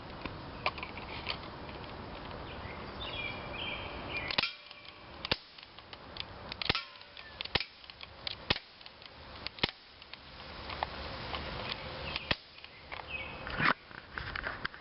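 Crosman Airmag C11 CO2 airsoft pistol firing semi-automatic shots at a drink can. About eight sharp pops come at irregular intervals of roughly a second, starting about four seconds in.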